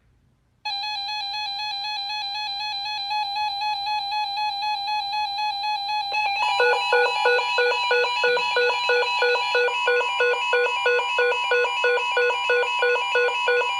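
Electronic alert tones. A steady buzzy tone comes on about half a second in, and about six seconds in a second tone joins it, pulsing about three times a second.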